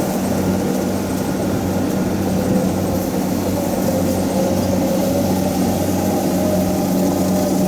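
Kubota DC70 combine harvester's diesel engine running steadily under working load, a constant deep hum with a thin whine above it that rises a little midway.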